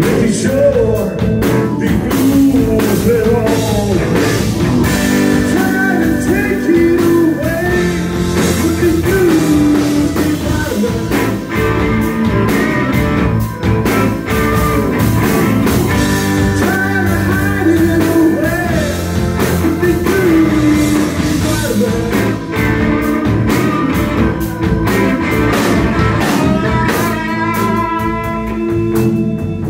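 Live blues-rock band playing an instrumental break: electric guitar lead with bent, wavering notes over bass, rhythm guitar and drums on a Tama Star walnut kit.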